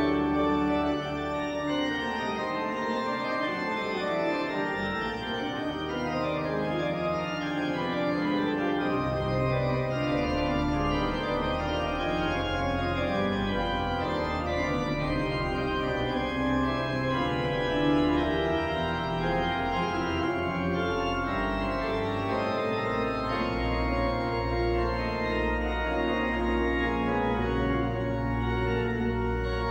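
Organ playing slow, sustained chords. Deep pedal bass notes fade out for several seconds early on and come back in about nine seconds in.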